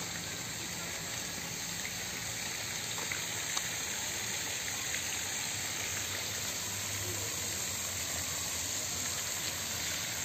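Steady splashing rush of a water jet from a Merlion statue fountain falling into a pond.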